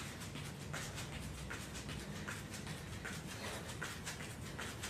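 Quick, even footfalls of trainers landing on an exercise mat while running in place doing high knees, several steps a second.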